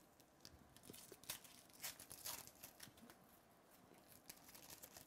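Foil trading-card pack wrapper being torn open and crinkled by hand: faint, a series of short crackles, loudest in the first half.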